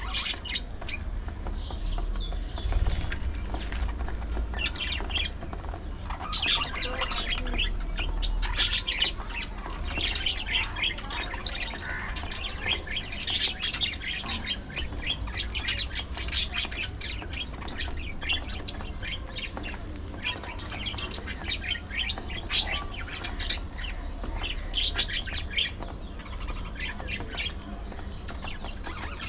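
A flock of pet budgerigars chattering: a continuous stream of short, high chirps and squawks.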